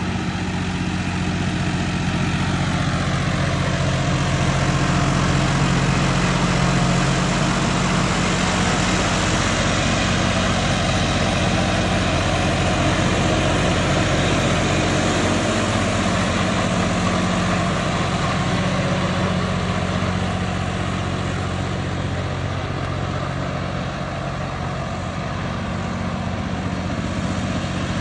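Modified John Deere 5405 tractor's turbocharged diesel engine running steadily at an even pitch.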